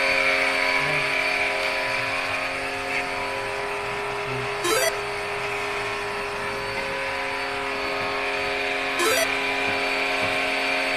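A small electric motor running steadily, a hum with a whine and a hiss over it. There are two short chirps, about five and nine seconds in.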